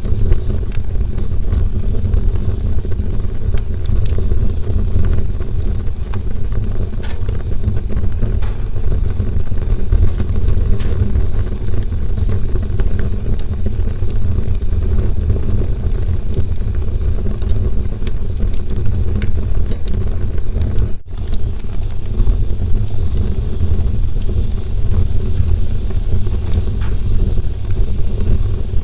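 Campfire burning: a steady low roar of flames with scattered sharp crackles and pops, cut by a momentary dropout about two-thirds of the way through.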